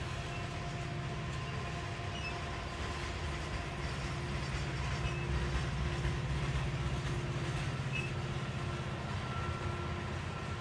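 Loaded coal hopper cars rolling slowly by on a curve: a steady low rumble of steel wheels on rail, with faint thin squeals from the wheels.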